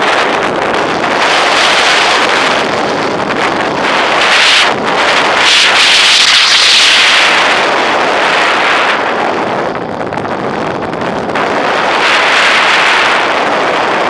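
Rushing wind noise on the onboard camera of a gliding RC Duo Discus sailplane, with no motor heard. The rush swells and eases several times.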